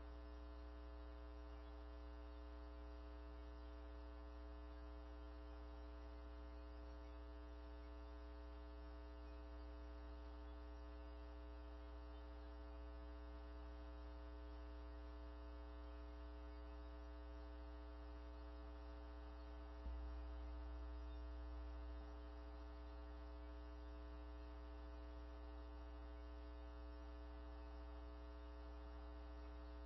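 Steady electrical mains hum with a row of higher overtones, at a low level. There is a faint click about twenty seconds in, and the low hum is slightly louder for a couple of seconds afterwards.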